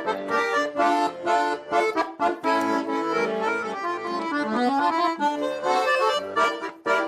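Instrumental break of a folk-style Russian song, led by an accordion playing the melody over a steady beat, with a rising run of notes about two-thirds of the way through.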